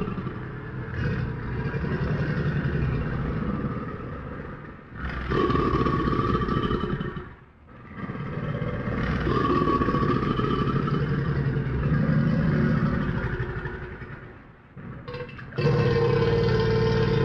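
Crocodile growling: a series of long, low, rasping rumbles, each lasting a few seconds, with short breaks between them.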